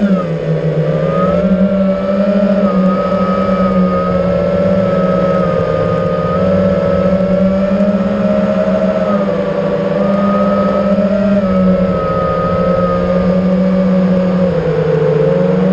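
FPV quadcopter's electric motors and propellers whining steadily, the pitch stepping up and down slightly as the throttle changes.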